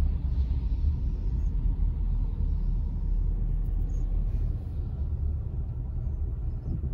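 Low, steady engine and road rumble heard inside the cabin of a Skoda Kodiaq SUV driving in city traffic.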